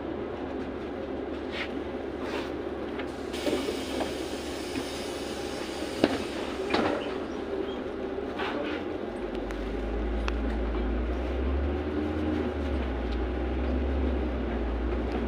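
Cabin sound of a LiAZ 6213.65 articulated city bus standing at a stop with the engine idling. About three seconds in there is a short hiss of air, and about six seconds in two sharp knocks. From about nine seconds in the engine's low rumble grows louder as the bus pulls away.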